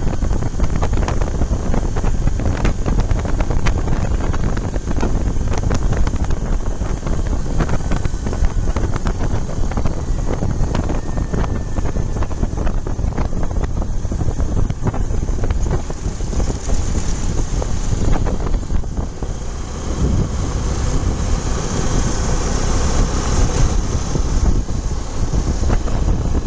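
Wind buffeting the microphone of a moving motorcycle, a steady loud rush with the bike's engine running underneath.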